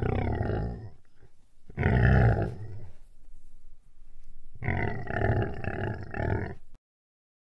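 An animal roaring three times, the third roar the longest at about two seconds, then cutting off suddenly.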